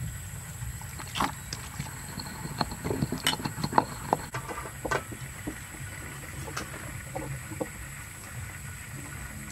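Stone pestle knocking and grinding against a stone mortar full of chili sauce, a run of sharp knocks in the first half that thins out, over a steady low background rumble.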